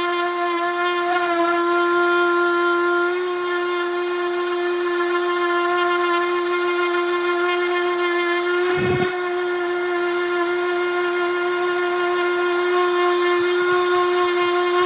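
Electric power sander running steadily on wood, a constant motor whine, with one brief knock about nine seconds in.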